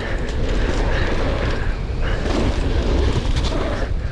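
Wind rushing over the microphone and knobby tyres rumbling on a dirt trail as a downhill mountain bike descends at speed, with scattered clicks and rattles from the bike.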